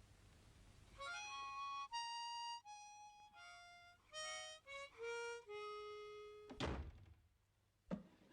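A short cartoon music cue: about ten held notes played one after another on a harmonica. The tune is followed by a loud dull thud and, a second later, a smaller knock.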